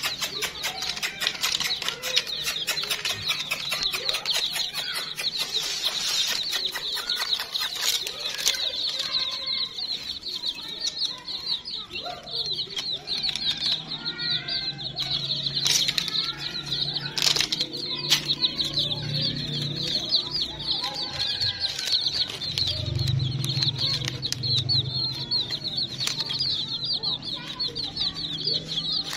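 A flock of young chicks peeping without a break, a dense chorus of short high cheeps. Many sharp little clicks run through the first third or so, fewer after.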